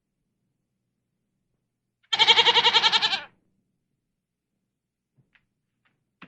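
A single bleat from a farm animal, about a second long, starting about two seconds in, with a rapid quaver through it.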